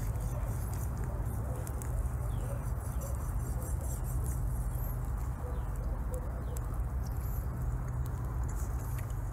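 Outdoor ambience: a steady low rumble with scattered faint clicks and a few short, faint bird chirps.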